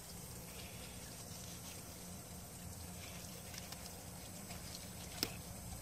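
Faint scraping of a fillet knife working the skin off a fish fillet on a cutting board, over a steady low hum, with one sharp click about five seconds in.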